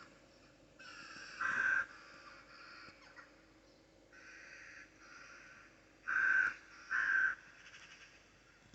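A large bird calling: one loud call about a second and a half in and two more close together around six to seven seconds in, with fainter calls between.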